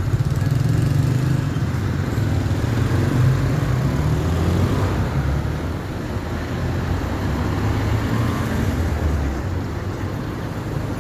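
Diesel engines of Mercedes-Benz OF 1519 buses running, a deep low-pitched drone that shifts slightly in pitch as the engines vary.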